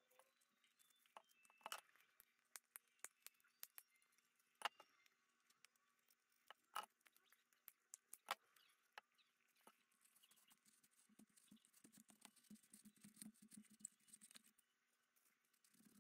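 Faint, scattered clicks and crackles of a dried paper-mâché skull shell being cut and trimmed with a knife and pliers, with a few seconds of soft scraping in the later part.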